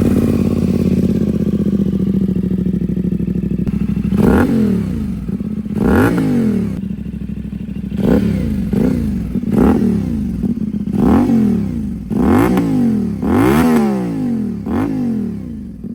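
CFMoto 450SR's parallel-twin engine breathing through an SC Project slip-on exhaust on the stock header pipes. It idles for about four seconds, then the throttle is blipped about nine times, each rev rising sharply and falling back to idle.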